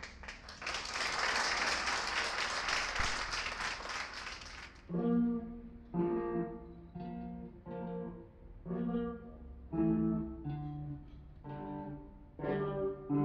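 Brief applause, then a small ensemble of electric guitars starts a piece about five seconds in, sounding short chords roughly once a second.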